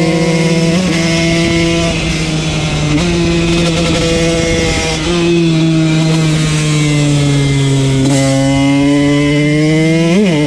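KTM 125 two-stroke motard engine running hard at fairly steady revs, with a couple of quick shifts in pitch. The revs sag slowly past halfway, then a quick blip of the throttle near the end.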